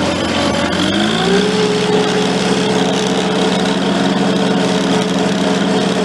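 International Harvester Cub Lo-Boy tractor engine running. About a second in its pitch rises as it is throttled up, and it then holds a steady higher speed.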